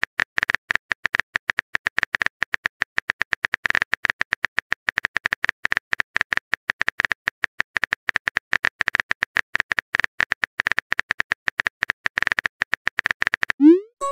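Simulated phone-keyboard typing clicks from a texting-story app: a rapid, unbroken run of sharp taps. Near the end a short rising whoosh plays as the message is sent.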